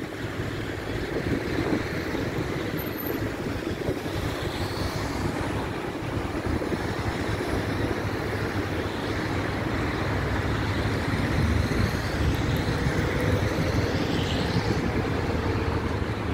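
Steady vehicle noise: a small box truck's engine running, with road traffic noise around it.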